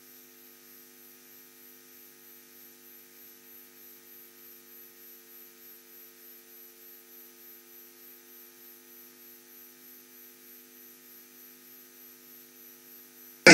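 Steady electrical mains hum made of a few low tones, with a slight regular pulsing in level and no other sound.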